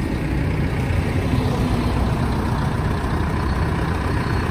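Shibaura V52 tractor engine idling steadily with a low, even hum.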